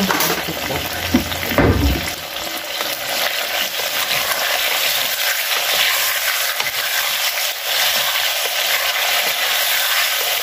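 Chicken wings frying in hot oil for plov, sizzling steadily, with a few faint knife taps on a wooden cutting board as onion is sliced.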